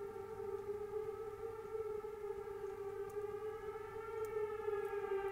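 Outdoor tornado warning siren sounding a long, steady tone held at one pitch. It is going off under clear skies with no storm, which the owner takes for a malfunction.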